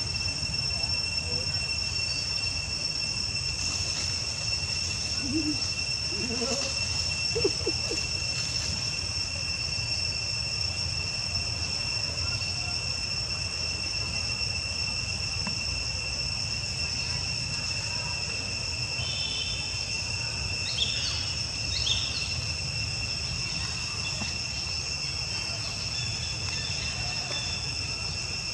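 Insects droning steadily at a high pitch, over a low rumble, with a few brief faint chirps about twenty seconds in.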